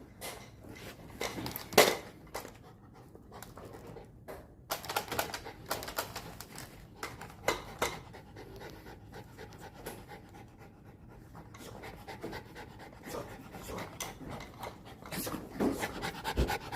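A dog panting in quick uneven breaths, with a single sharp knock about two seconds in.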